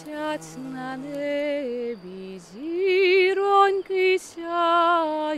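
A woman singing a slow Ukrainian folk melody in a classically trained voice, holding each note with a wide vibrato and pausing briefly between phrases.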